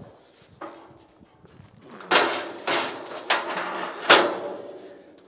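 Steel Airstream trailer frame being turned by hand on a DIY frame rotisserie: several metal scrapes and clanks over about two seconds in the second half, the last a sharp knock.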